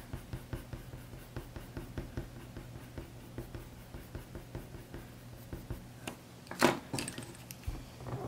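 White coloured pencil making short, quick strokes on paper, ticking about three times a second. About six and a half seconds in there is one louder knock.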